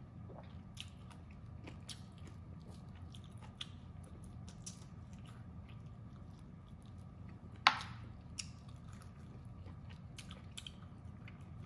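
Close-up eating of duck pieces: biting and chewing with small, scattered wet clicks and crunches. One sharp, loud crack comes about two-thirds of the way through, over a steady low hum.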